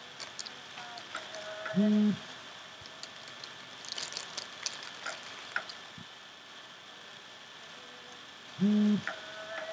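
A clear plastic zip-lock bag crinkling and clicking while hands pick small bones out of it and set them down on bubble wrap. Twice, about seven seconds apart, a short, loud low tone of about half a second sounds over it, the same both times.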